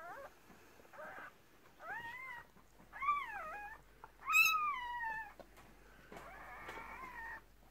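Newborn Cardigan Welsh Corgi puppy crying: a string of about six short, high-pitched cries that rise and fall in pitch, the loudest about halfway through.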